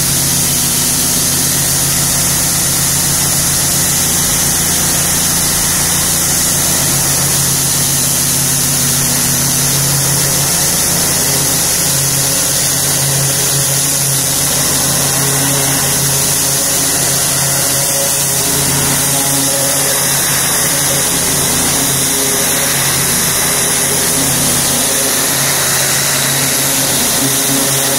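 Pressure washer running steadily: a motor-driven pump under the loud hiss of a high-pressure water jet spraying vinyl siding.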